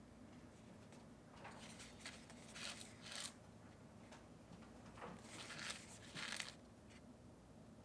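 Soft rustling and scraping handling sounds in two clusters, about one and a half seconds in and again about five seconds in, over a steady low hum.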